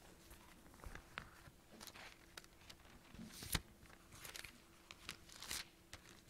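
Thin Bible pages being leafed through and turned: faint, irregular rustling and crinkling, with one sharper swish of a page about three and a half seconds in.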